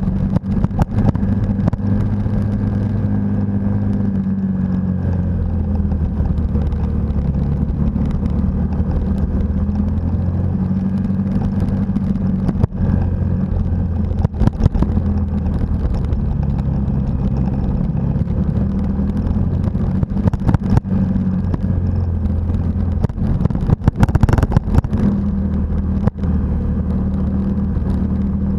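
Motorcycle engine running while riding a gravel road, its note dropping and rising a few times with the throttle. Scattered knocks and rattles from bumps in the road, with a cluster about three-quarters of the way through.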